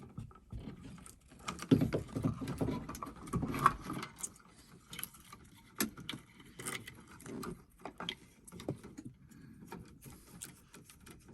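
Irregular small clicks, scrapes and rattles of a screwdriver, terminal screws and wires as an old single-pole light switch is disconnected and pulled free of its wires.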